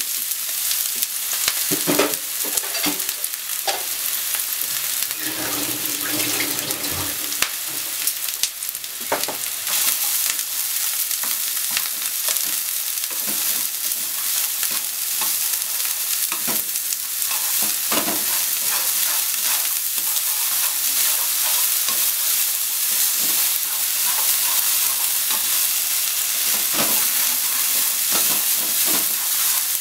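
Sliced negi (Japanese long onion) sizzling steadily in hot oil in a non-stick frying pan, stir-fried with wooden chopsticks that click and scrape against the pan many times.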